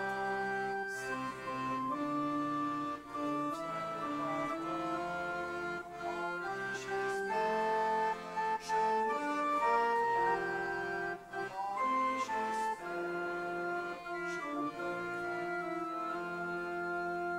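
Organ playing a slow hymn tune in sustained chords, one held note after another, accompanying a sung response.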